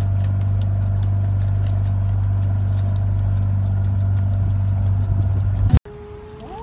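Motorboat engine running steadily, a low hum with a faint fast ticking over it. It cuts off suddenly near the end, and a cat starts a low, drawn-out yowl.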